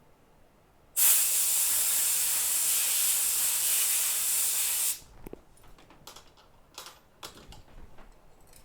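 An aerosol spray can hisses in one steady four-second burst that starts and stops abruptly, cleaning dirt off a phone logic board. A few light clicks follow.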